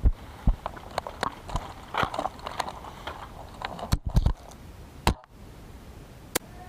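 Irregular clicks, knocks and rustling close to the microphone, the sound of gear and the airsoft rifle being handled. There is a quick cluster of knocks about four seconds in and a single sharp click near the end.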